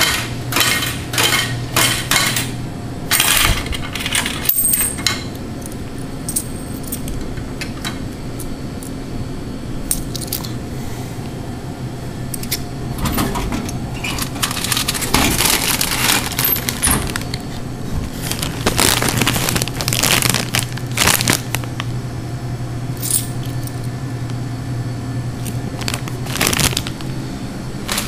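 Dollar coins clinking in a hand and dropping into a vending machine's coin slot, a scattered series of sharp metallic clicks and clatters. Under them runs the machine's steady low hum.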